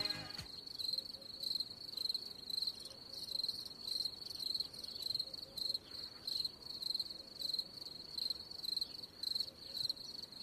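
A cricket chirping steadily, about two high-pitched chirps a second.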